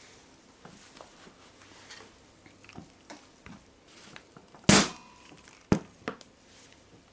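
A rubber mallet strikes a snap-together plastic eyelet through a tarpaulin once, loudly, tapping it closed, followed about a second later by a sharper, shorter knock and a smaller one. Faint clicks from handling run throughout.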